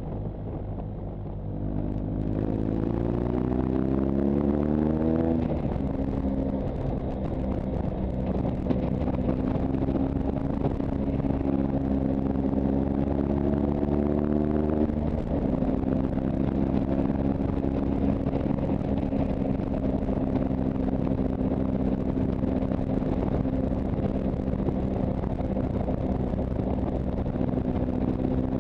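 Motorcycle engine under way, climbing in revs as it accelerates, shifting up about five seconds in and again about halfway through, then holding steady at cruising speed, with a rush of wind.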